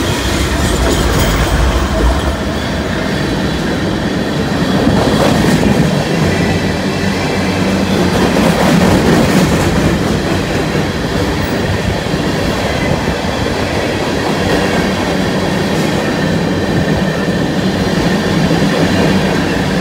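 Diesel freight train passing close by: the trailing locomotive goes by in the first couple of seconds, then a long string of loaded covered hopper cars rolls past, steel wheels on the rails making a steady, loud noise.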